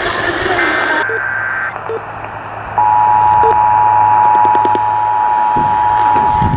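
Emergency Alert System test received over the radio: the last burst of the digital header, a buzzy two-pitch squawk, ends before two seconds in. About three seconds in, the steady two-tone attention signal starts and holds, over radio static and a low hum.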